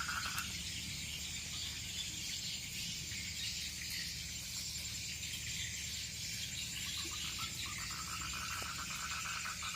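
Insects chirring steadily with a thin high trill, joined by a lower pulsing trill that stops about half a second in and returns near the end.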